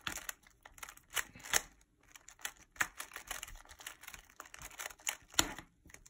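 A 3x3 Rubik's cube being turned quickly by hand, its plastic layers clicking in a fast, irregular run of turns, with one sharper click near the end.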